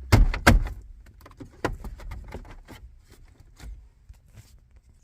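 Aftermarket radio in its plastic mounting kit being pushed into the car's dash: a quick cluster of loud knocks and clicks in the first half second, another knock near two seconds in, then scattered lighter clicks and taps of plastic on plastic as it seats.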